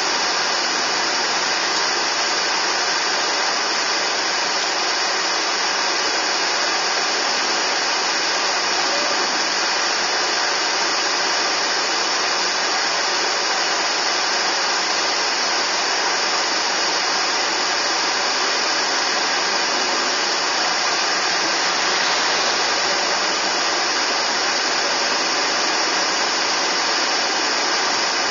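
Steady, even hiss inside a car moving slowly in traffic, strongest in the upper range, with no engine note standing out.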